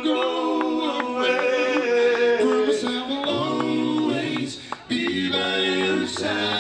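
Live soul band playing, with a male lead singer and other men singing into microphones over the instruments; the sound drops out briefly a little before the end, then carries on.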